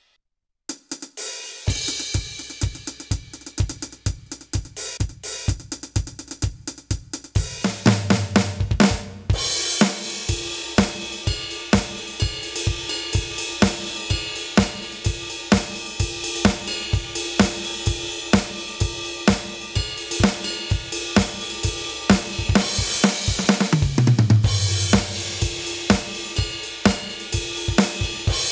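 Aroma TDX-25 electronic drum kit played through its sound module on the 'Pop Studio' preset kit: a pop-rock groove of kick, snare, hi-hat and cymbals. It starts after about half a second of near silence, with the kick coming in about a second later. Tom fills run down in pitch about eight seconds in and again near the end.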